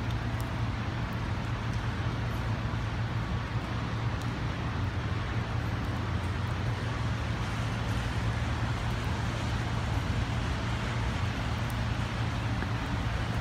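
Steady rain on a city street with traffic passing on the wet road: an even hiss of rain and tyres over a constant low hum.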